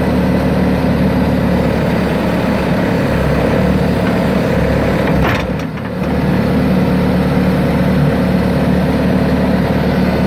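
Bobcat S300 skid-steer loader's diesel engine running steadily, with a brief drop in level about five and a half seconds in.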